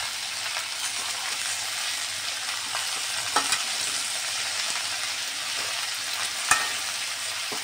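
Cut okra sizzling steadily in hot oil in a kadai on high flame while being stirred and tossed with a slotted steel spatula. There are two short clicks of the spatula against the pan, about three and a half and six and a half seconds in.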